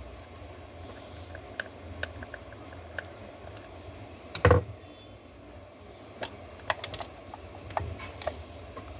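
Small clicks and scrapes of a screwdriver working the screws on the plastic base of a Hikvision dome IP camera, with one louder knock about halfway through and a quick run of clicks near the end.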